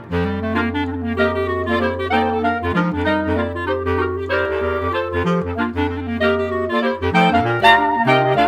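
Background music led by a woodwind melody over a sustained bass note.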